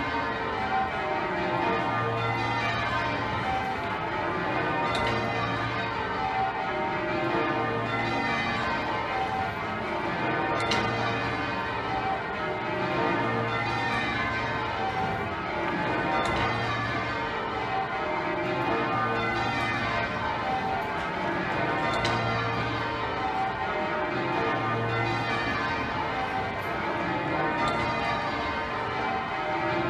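Full-circle change ringing on Exeter Cathedral's ring of twelve bells, whose 72 cwt tenor is the second-heaviest ring in the world. The bells strike in a continuous overlapping sequence, and the deep hum of the heaviest bell recurs about every three seconds.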